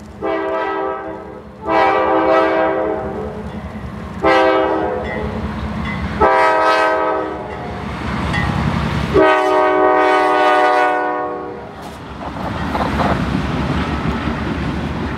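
Locomotive air horn blowing five blasts, the last one the longest, over a steady low engine rumble; after the last blast only the rumble goes on.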